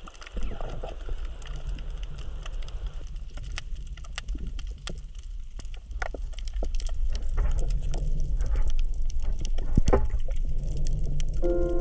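Underwater crackle of a coral reef: a steady patter of scattered sharp clicks and snaps over a low rumble, the 'michimichi' sound that the uploader has heard is the coral breathing.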